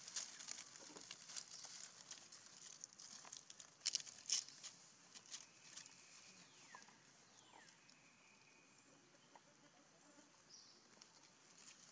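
Dry leaf litter rustling and crackling as a baby monkey rummages through it, busiest in the first few seconds with a couple of louder crackles about four seconds in. Later it turns quieter, with a few faint falling whistles in the background.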